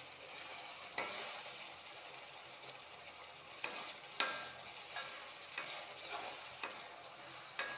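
Metal spoon stirring a thick, sizzling tamarind, ginger and jaggery mixture in a metal kadai on a gas flame: a steady sizzle with sharp clicks of the spoon against the pan every second or so. The mixture has reduced to its finished thickness.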